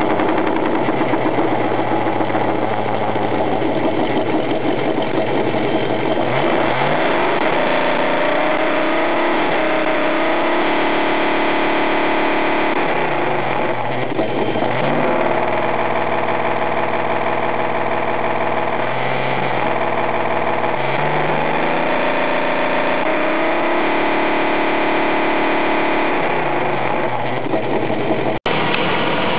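Simulated engine sound from an RC model's electronic sound-effects unit, idling and revving: the engine note falls and rises several times between steady stretches. A sharp click with a momentary dropout comes near the end.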